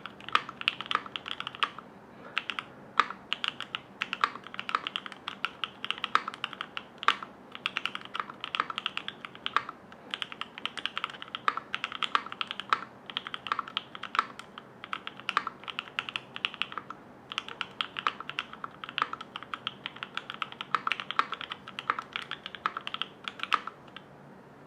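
Continuous fast typing on a Cornetto60 60% mechanical keyboard with lubed and filmed Alpaca linear switches in an FR4 plate and Equalz stabilisers. A rapid, dense run of keystrokes with occasional louder single strokes and brief pauses, stopping about a second before the end.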